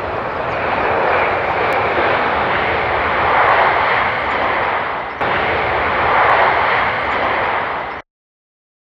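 Jet airliner engines running with a steady rushing noise that swells and eases slightly. It dips briefly about five seconds in and cuts off suddenly about eight seconds in.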